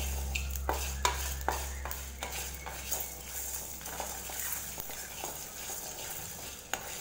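Wooden spatula stirring and scraping whole spices, dried red chillies and curry leaves as they dry-roast on low flame in a coated kadai, with scattered light clicks of seeds and chillies knocking about the pan. A low steady hum fades out about five seconds in.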